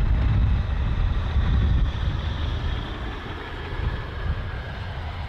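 Royal Aircraft Factory B.E.2c biplane's engine running as it flies past: a steady drone with a heavy low rumble, loudest in the first two seconds and easing a little after.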